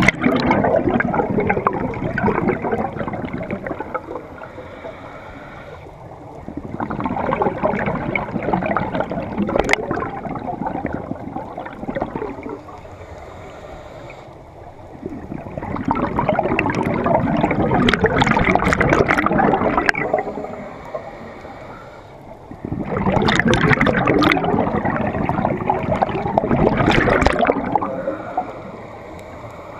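Scuba regulator exhaust bubbles gurgling past the lens as the diver breathes out underwater. They come in four long bursts about every seven seconds, with quieter gaps between them while the diver breathes in.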